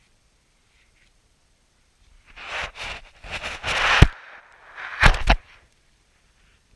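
A cluster of sharp knocks and crunching scrapes close to the microphone, starting about two seconds in. The loudest knock comes about four seconds in, and two more follow about a second later.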